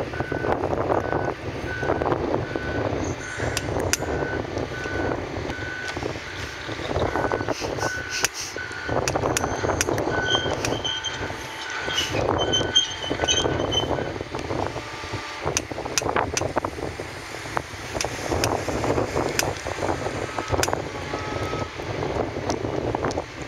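Heavy-equipment backup alarm beeping steadily at about two beeps a second, stopping about halfway through, over the rumble of diesel excavator engines and gusty wind on the microphone.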